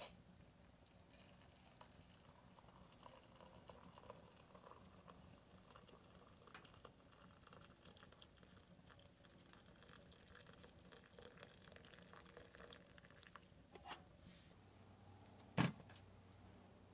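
Coffee poured from a stainless steel pot into a stainless steel camp cup: a faint, steady trickle and patter of liquid for about twelve seconds. Near the end comes one sharp knock.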